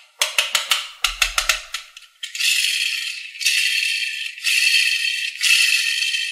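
Toy car and small beads in a metal muffin tin rattling as the car is handled: a quick run of clicks and knocks, then a continuous rattle in about four strokes of roughly a second each.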